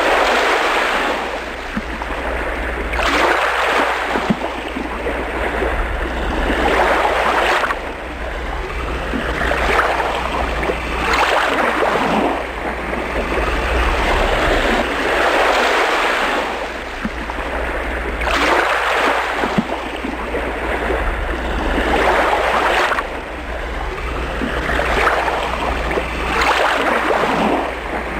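Ocean waves breaking and washing in, swelling and falling about every three to four seconds, over a steady low rumble.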